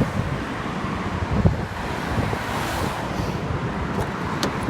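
Strong sea wind buffeting the microphone in a steady rumbling rush, with a brief swell of hiss around the middle.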